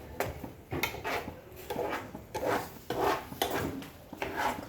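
A utensil scraping and stirring against the pan of egg curry, in a string of short, uneven strokes.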